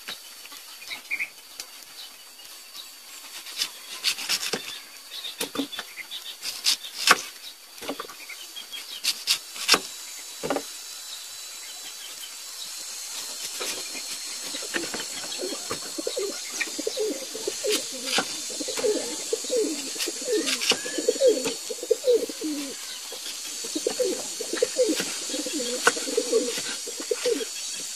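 Kitchen knife cutting a peeled pineapple on a wooden chopping board: scattered sharp knocks as the blade meets the board. From about halfway through, a bird coos repeatedly in the background, over a steady high whine.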